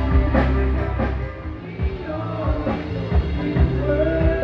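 Band music with a drum kit playing a steady beat over low bass notes.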